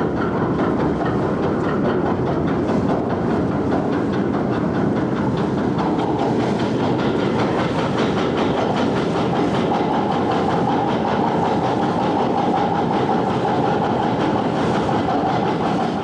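Steady mechanical rumble and rattle of the Studland–Sandbanks chain ferry under way, with a steady whine joining about ten seconds in. The noise cuts off suddenly at the end.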